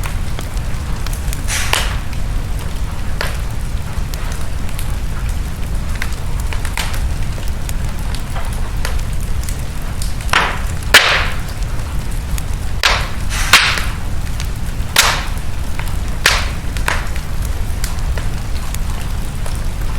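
Wood fire crackling in a fireplace: a steady low rumble of the flames with scattered sharp pops and snaps, coming thickest and loudest in the second half.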